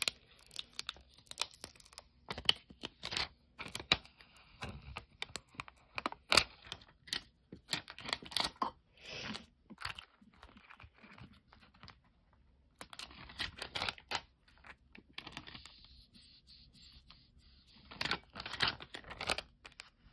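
Vinyl transfer tape being pressed down onto a clear acrylic night-light panel and peeled away: irregular crinkling and scratching of plastic film with small sharp clicks. A quiet pause of a few seconds comes a little past the middle.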